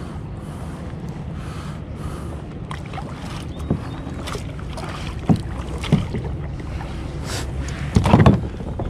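Wind rumbling on the microphone while a kayak moves across open water, with water washing against the hull. A few short knocks come through, the loudest cluster about eight seconds in.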